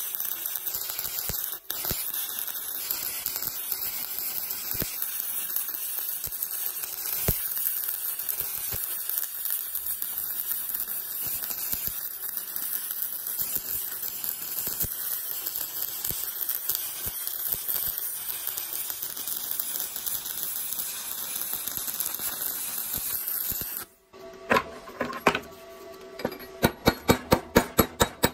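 Stick-welding arc of a 2.5 mm E7018 electrode at 85 A on steel plate, a steady crackling hiss that cuts off suddenly near the end. A chipping hammer then knocks the slag off the weld: a couple of knocks, then quick strikes about three a second.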